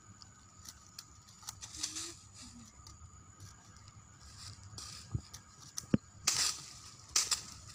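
Dry leaf litter rustling and crunching under bare feet and a long vine being swung and dragged, with scattered light clicks and one sharp knock about six seconds in.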